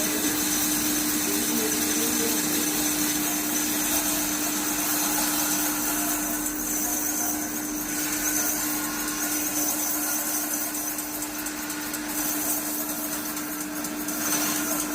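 Woodworking power machine running steadily: a constant motor hum over a steady rush of noise, with no clear change in pitch.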